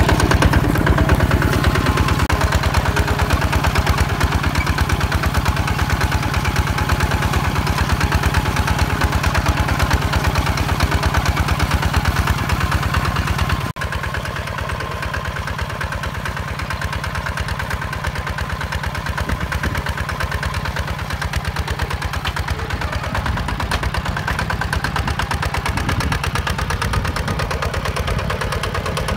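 Hinota HG Gold 155 DI walking tractor's single-cylinder diesel engine running steadily under load while pulling a disc plough through dry soil, with a fast, even pulse. About halfway through it cuts briefly and comes back a little quieter.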